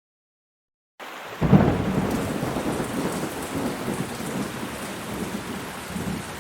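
Storm sound effect: silence, then a loud thunderclap rumbles in about a second and a half in, followed by steady heavy rain.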